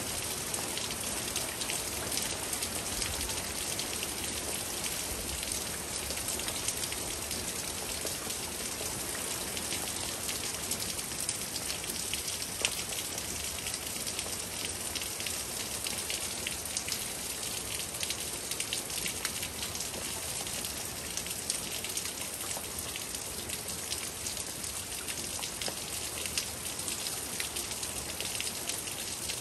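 Steady rain: an even hiss with many individual drops ticking close by.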